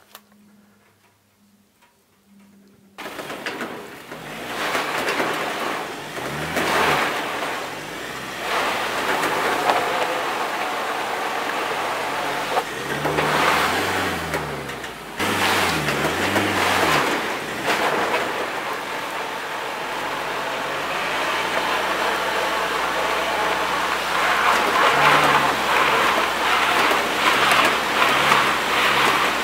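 Ford Transit's engine revving again and again while its rear dual tyres spin on a wet, muddy surface, the hiss of the spinning tyres and flung mud running under it. It starts about three seconds in, the revs rise and fall several times, then hold higher and louder near the end.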